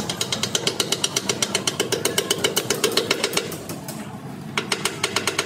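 A machine or power tool hammering rapidly and evenly, about nine strikes a second. It stops about three and a half seconds in and starts again about a second later.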